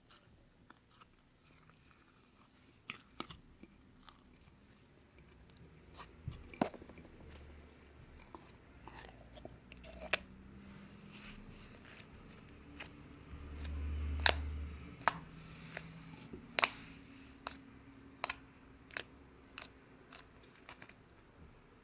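Butter slime being squeezed and pressed by hand, giving scattered sharp clicks and pops at irregular intervals, with a low dull swell of handling noise about two-thirds of the way through.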